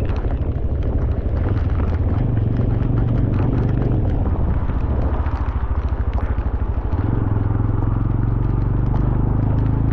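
Engine of a moving vehicle running steadily on a hill road, with road and wind noise over it; the engine note shifts about seven seconds in.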